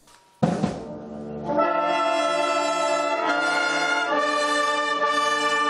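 Concert wind band playing: a sharp chord about half a second in, then loud held brass chords that shift a couple of times.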